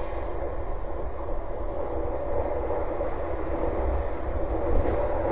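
Steady droning rumble with an unsteady low rumble beneath it and no distinct events.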